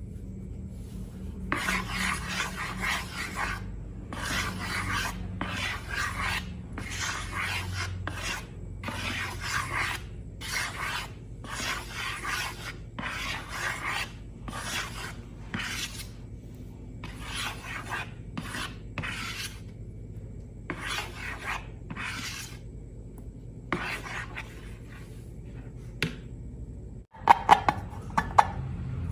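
Rhythmic rasping, rubbing strokes, about one a second and each lasting up to a second, with a few sharp clicks near the end.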